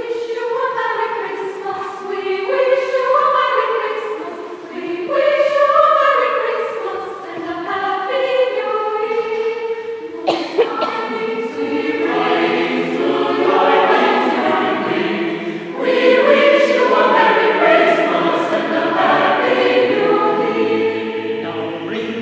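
Mixed choir singing a cappella in sustained chords. Higher voices carry the opening, and lower voices join about halfway through, so the sound grows fuller.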